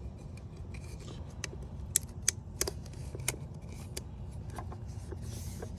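Scattered sharp clicks and a brief rustle from hands handling a plastic oil filter housing cap and filter element while a new O-ring is fitted, over a low steady rumble.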